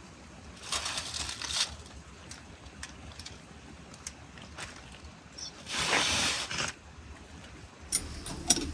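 Aluminium foil crinkling in two short bursts, about a second in and again, louder, around six seconds, as a foil-covered tandoor lid is lifted and moved. Near the end, two sharp clicks of metal tongs reaching in over the oven's rebar grid.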